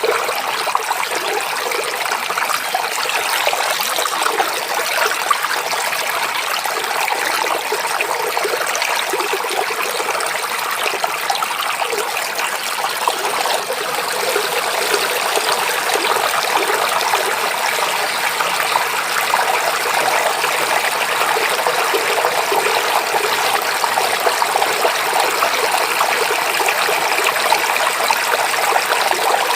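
Flowing stream water babbling and trickling steadily.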